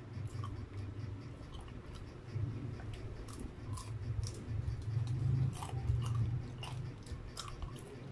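Chewing crunchy breaded, deep-fried chicken proben (chicken proventriculus), with irregular crisp crunches and clicks, loudest about five to six seconds in.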